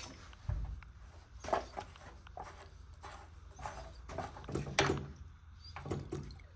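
A string of irregular knocks and clunks, about ten in all, from hands and tools working on a stuck pipe fitting.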